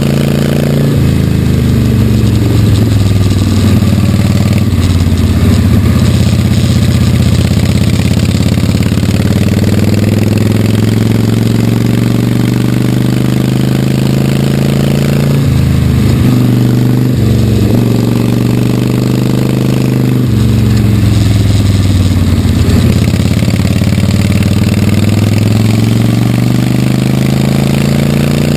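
1946 Harley-Davidson WL's 45-cubic-inch flathead V-twin pulling hard, heard from a camera mounted on the bike. The engine note climbs and falls with throttle and speed, and the low rumble cuts out twice briefly about halfway through.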